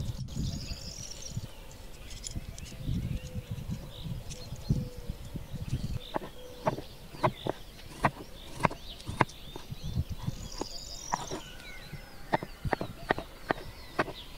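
Knife cutting peeled potatoes on a wooden cutting board: sharp knocks of the blade on the board, about two a second, starting about six seconds in. Small birds chirp in the background.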